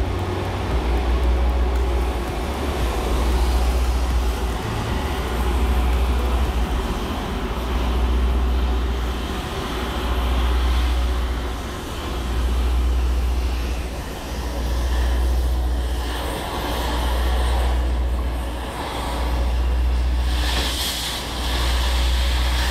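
Oxy-acetylene cutting torch hissing steadily as it cuts through rust-seized shock absorber bolts on a semi truck, over a deep rumble that swells and fades every couple of seconds. The hiss brightens near the end as sparks fly from the cut.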